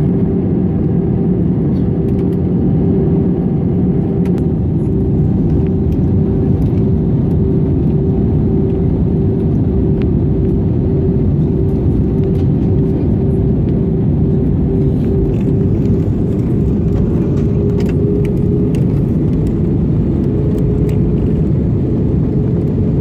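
Steady jet engine and airflow noise inside the cabin of an Airbus A320-family airliner descending to land, a loud even rumble with a constant hum running through it.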